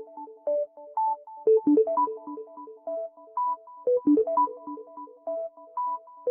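A Samsung Galaxy S10 ringtone: a synthesized melody of short, repeating, keyboard-like notes, with a few low drum hits under it.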